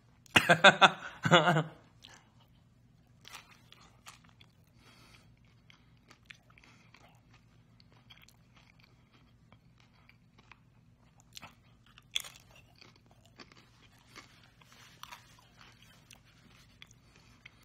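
A person chewing a bite of crunchy corn tostada, with faint scattered crunching clicks. A short vocal sound comes first, in roughly the opening second and a half.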